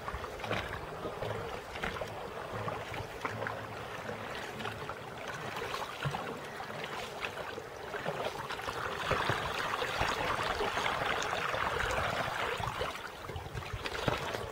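Water lapping and splashing against the side of a small boat under way, with many small splashes. The water noise grows louder about nine seconds in and eases off again near the end.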